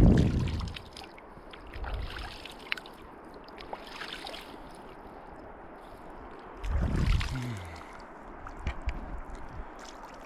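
River water flowing and gurgling steadily, with two louder low rumbles, one at the start and one about seven seconds in.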